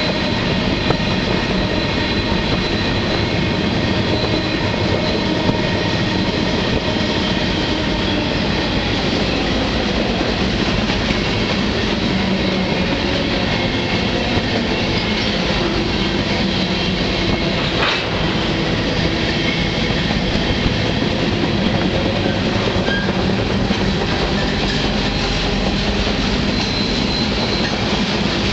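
Freight train running along the line, heard from on board a car: a loud, steady rumble and roar of steel wheels on rail, with thin high steady tones over it and a single sharp clack about eighteen seconds in.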